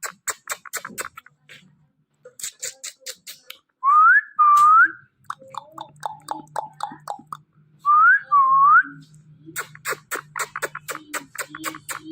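Ringneck parrot making rapid trains of clicks and some chatter, with two pairs of short, loud, upswept whistles about four and eight seconds in.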